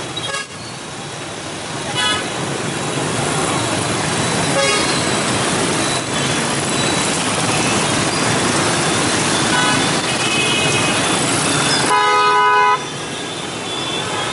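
Dense motorbike and scooter traffic running through a busy intersection, a steady wash of small engines, with short horn toots scattered through and one longer, louder horn blast near the end.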